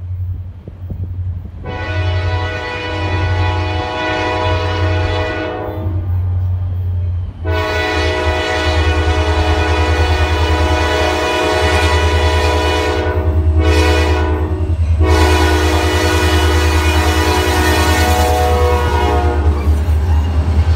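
Freight diesel locomotive's horn sounding the grade-crossing signal: two long blasts, a short one and a final long one, over the low rumble of the approaching train.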